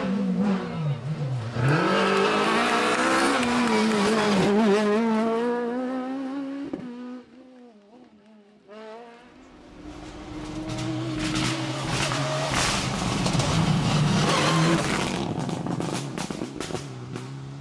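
Rally car engines at full throttle, the pitch rising and dropping with each gear change as a car goes by and fades away; after a brief quiet gap about seven seconds in, another car's engine builds up, with sharp cracks near the end.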